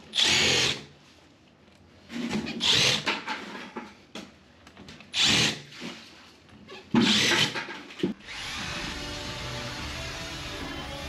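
Milwaukee M12 cordless drill boring into the bathroom floor in four short bursts. Background music starts about eight seconds in.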